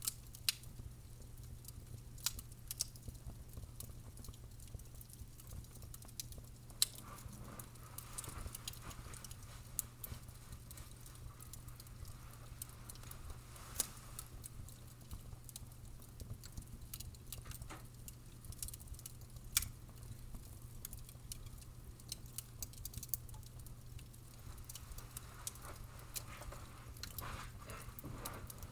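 Wood fire crackling, with irregular sharp pops and snaps scattered over a soft steady burning hiss and a low hum.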